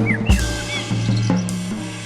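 Drum kit played freely: a deep bass-drum hit about a quarter second in and several lighter drum and cymbal strokes, over a low ringing drum tone. A few short, high chirping glides sound in the first second.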